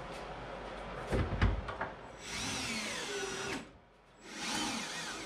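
Cordless drill driving screws through a metal hinge bracket into a wooden wall. It runs in two bursts of about a second and a half each, its motor pitch rising and falling, with a short pause between. A couple of low knocks come before the first burst.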